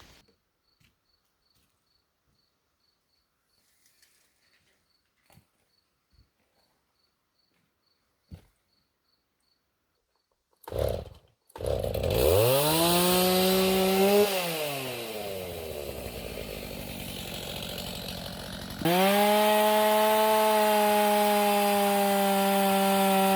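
A few faint clicks, then a gas chainsaw starts up about halfway through: it revs up, drops back to idle, and a few seconds before the end runs at high, steady full throttle for cutting a log.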